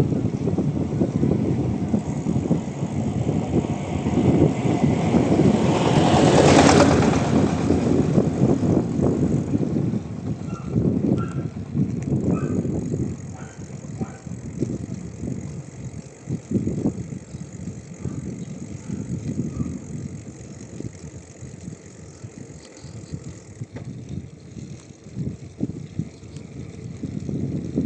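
Wind buffeting the microphone of a camera on a moving bicycle, with rumble from the ride; a louder rushing sound swells and fades about six to seven seconds in, and the noise eases off in the second half.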